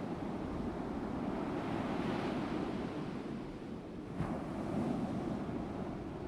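Ocean waves sound effect: a steady wash of surf that swells and breaks about two seconds in and again near the end.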